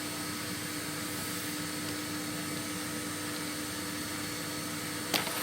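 A motor running with a steady, even hum, and a short knock near the end.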